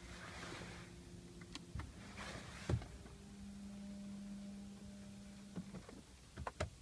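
A small electric motor whirring steadily for about two and a half seconds, among several sharp clicks and two short hisses.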